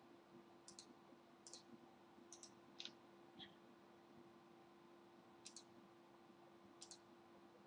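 Faint computer mouse clicks, about seven spread over several seconds, each a quick double tick of button press and release, over a low steady hum.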